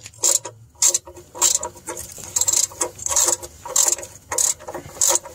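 Socket ratchet wrench clicking in short bursts, about two a second, as it tightens the oil-pan drain plug back in after an oil change.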